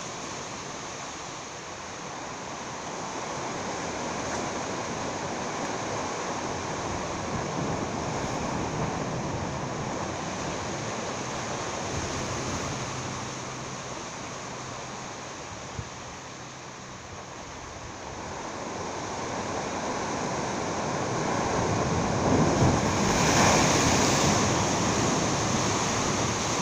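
Sea waves washing against jetty rocks: a steady rushing that swells and ebbs, growing louder over the last few seconds, with some wind on the microphone.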